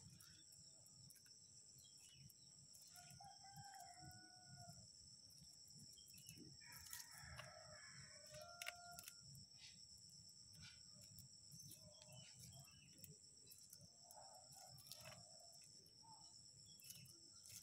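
Faint rooster crowing several times, over a steady high-pitched hum, with a few light clicks.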